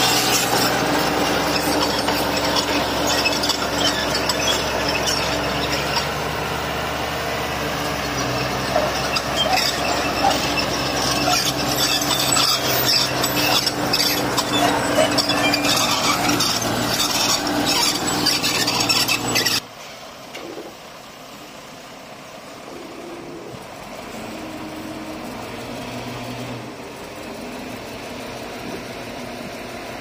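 Bulldozer working, its engine running under load amid dense clanking and scraping from the tracks and blade. About two-thirds of the way through the sound cuts off abruptly to a quieter, steady engine running.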